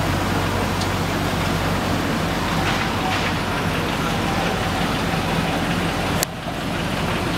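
Steady city street traffic noise with a low engine hum. There is one sharp click about six seconds in, after which the noise is briefly quieter.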